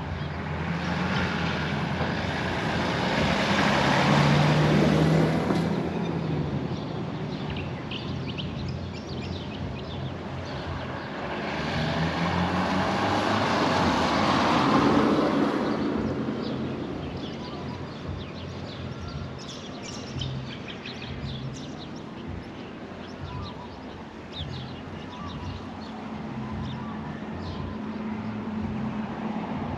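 Two vehicles passing one after the other, each growing louder and then fading over several seconds, over a steady low hum.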